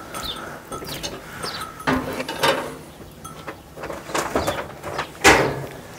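Footsteps on a packed-earth rooftop walkway: a few separate steps, the loudest one a little after five seconds in, with faint short bird chirps.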